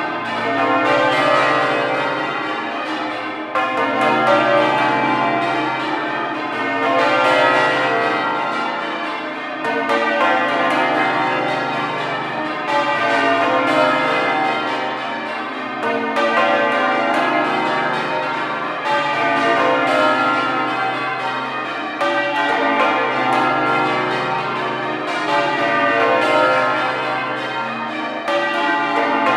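Change ringing on Exeter Cathedral's ring of twelve church bells: a continuous run of overlapping bell strokes in a steady rhythm, the rows swelling about every three seconds.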